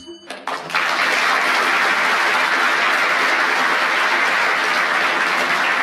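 A whistle blows briefly, the signal that the minute is up and the round is over. About a second in, a studio audience breaks into steady applause.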